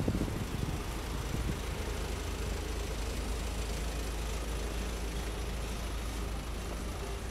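Steady low rumble of road traffic and vehicle engines on a city street, with a faint steady hum.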